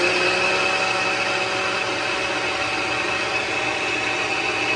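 Countertop blender running steadily at speed, its motor giving a constant high whine over a churning hiss as it purées chopped beets and carrots with water into a smooth liquid.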